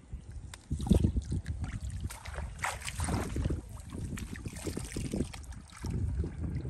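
Shallow muddy water splashing and sloshing in irregular surges as a boy wades through it and scoops it with a metal bowl, loudest about a second in.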